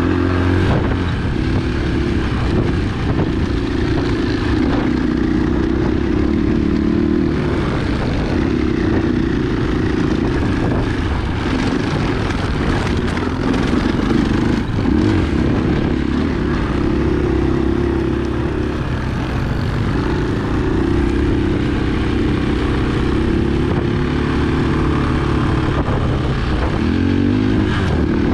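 Single-cylinder four-stroke dirt bike engine running steadily under way, its pitch rising and falling a little with the throttle, over a constant rushing noise.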